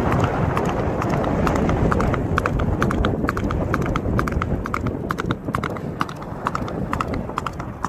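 Horse's hooves clip-clopping in a quick, steady rhythm, over a constant low rumble.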